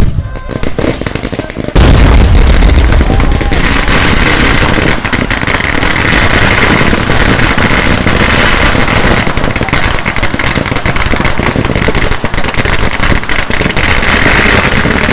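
A rapid, unbroken barrage of firecracker and fireworks bangs, a few scattered blasts at first and then, about two seconds in, a continuous dense volley of explosions that keeps going.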